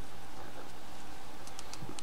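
Small metal clicks of steel bearing balls and rings being handled as the last ball is worked into a skateboard ball bearing. There are a few light ticks near the end, over a steady low hum.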